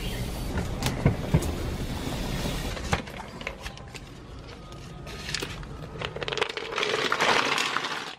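Wood fire crackling under a cooking pot, with a steady low rumble and a few sharp pops. After a cut, hot water and boiled apple snails are poured out of the pot into a plastic strainer basket, a splashing rush that grows louder near the end.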